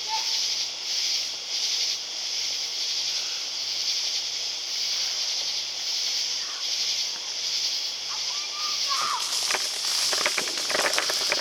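Steady, evenly pulsing high-pitched chorus of night insects. About nine seconds in, a firework begins crackling with a rapid run of sharp pops.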